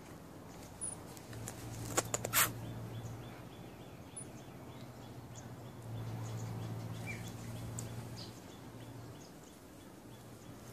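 Outdoor ambience: a low steady hum that comes and goes, a short cluster of sharp clicks about two seconds in, and a few faint high chirps scattered through.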